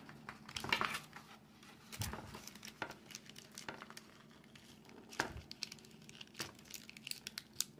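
Faint, irregular crinkling and rustling of paper, with scattered small clicks, as parchment paper is worked loose from the spine of a hardcover book being handled open.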